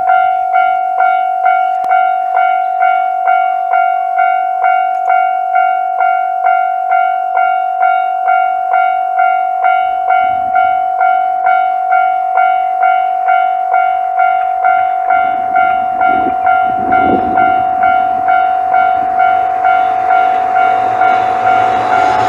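Japanese level-crossing warning bell ringing steadily at about two strokes a second. From about fifteen seconds in, the rumble of an approaching 2700 series limited express diesel train builds beneath it and grows loud near the end.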